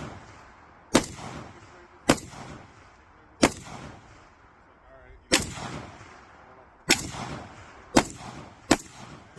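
Hungarian AMD-65 rifle in 7.62x39mm firing single shots, seven in all, unevenly spaced about one to two seconds apart, each with a short echo after it.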